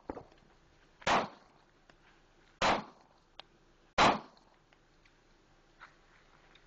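Three pistol shots from a Heckler & Koch P2000SK subcompact handgun, each roughly a second and a half apart.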